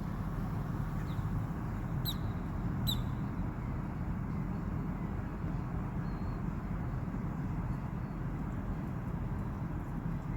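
Wild birds chirping outside: two short, sharp chirps about two and three seconds in, and a couple of fainter ones later, over a steady low rumble of distant traffic.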